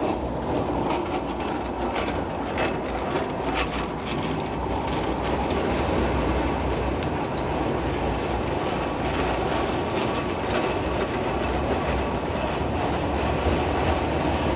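CAF Urbos tram running through a street curve with a steady rolling rumble. A run of sharp clicks in the first few seconds comes from the wheels crossing rail joints and points.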